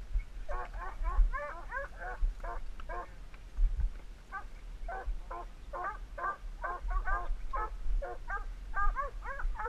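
A pack of hunting hounds barking on a mountain lion, several dogs overlapping in a steady chop of short barks, a few a second. Low thumps from the camera being jostled in the brush come through under them.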